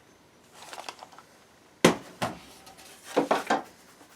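Clicks and clatter of small hard objects being handled: a faint rattle, then a sharp click about two seconds in with a second just after it, and a short run of clatters near the end.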